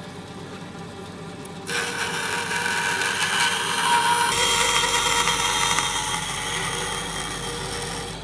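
Band saw motor running with a steady hum, then about two seconds in the blade starts cutting a thin sheet, adding a louder, steady rasping cut noise over the hum that eases slightly near the end.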